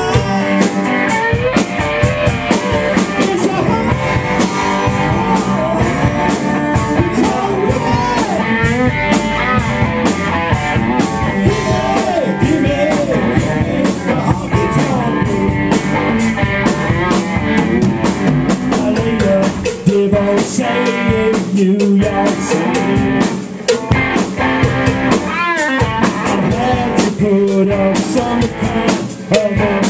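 Live rock cover band playing loudly: electric guitars over a steadily beating drum kit.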